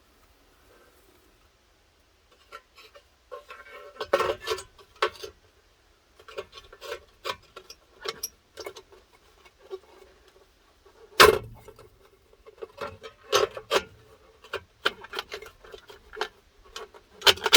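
Irregular metal clatter and knocks from a dog-dish hubcap being handled and worked onto a wheel rim, several with a short ringing tone. It starts a couple of seconds in, and the loudest knock comes about eleven seconds in.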